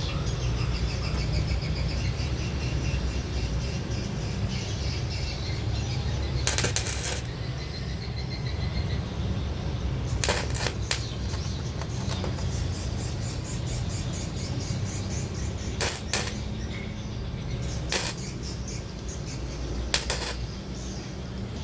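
Several sharp metallic clinks and knocks, spaced a few seconds apart, from hollow iron tube parts being handled and worked, over a steady low hum.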